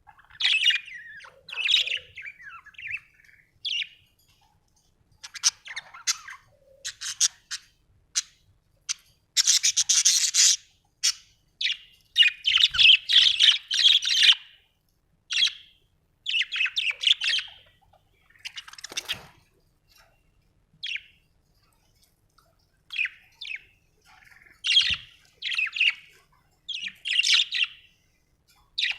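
Budgerigars chirping and warbling in irregular bouts of quick, high-pitched chirps with short pauses between them.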